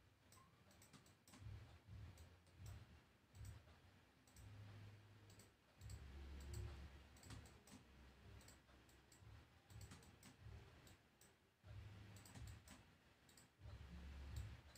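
Faint, irregular clicks of a computer mouse button as anchor points are placed one after another, with low rumbling bumps in between.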